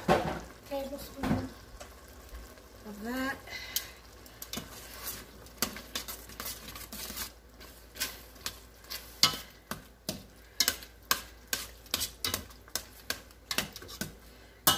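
A spoon stirring thick goulash in a stainless steel pot on the heat, scraping and knocking against the pot about twice a second, over the sizzle of the simmering sauce.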